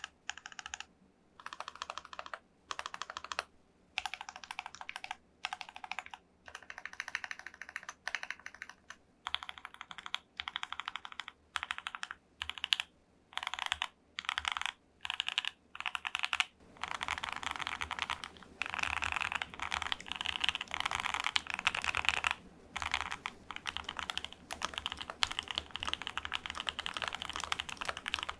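Typing on a Keychron Q2 aluminium mechanical keyboard fitted with Gateron Box Ink switches on a steel plate. Short bursts of keystrokes with pauses between them, then continuous faster typing from about halfway through.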